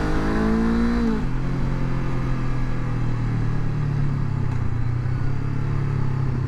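Motorcycle engine pulling with a rising note, then the throttle is closed about a second in and the note drops to a steady lower pitch as the bike slows on the overrun.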